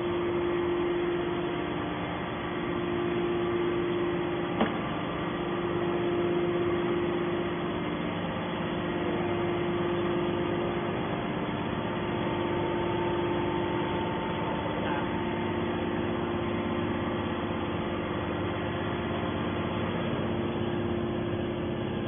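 Hydraulic metal baler's power unit running steadily, an even hum with a constant tone. One short sharp click about four and a half seconds in.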